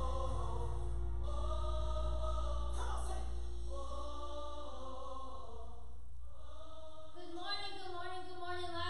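Choral music with long held vocal notes over a steady low drone. About seven seconds in the drone drops away and a woman's voice on a microphone takes over.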